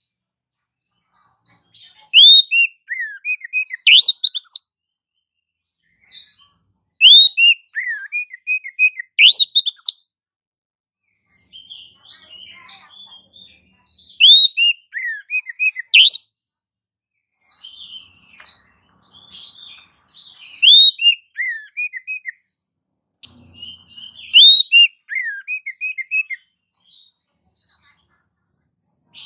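Songbird calls played as a bird-trapping lure: repeated phrases of sharp high chirps followed by a run of short falling notes, with silent gaps between phrases.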